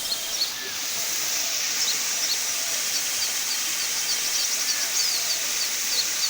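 Small birds chirping in short repeated calls over a steady high-pitched hiss, with a quick rattling trill about four and a half seconds in.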